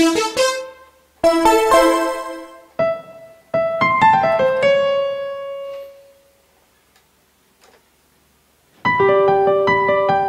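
Sampled keyboard instrument sounds from a Kontakt library, played on a MIDI controller keyboard: short runs and chords whose notes ring and die away, then about three seconds of near silence. Near the end a held chord starts under a moving line of notes.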